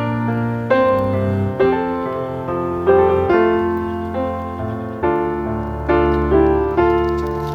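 Background piano music: a slow melody of struck chords, each ringing and fading, with a low bass note under it.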